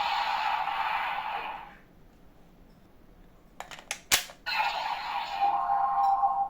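DX Zeztz Driver toy belt playing electronic music and sound effects through its small speaker, which stops after a couple of seconds. A few sharp plastic clicks follow, the loudest about four seconds in, and then the belt's sound starts up again.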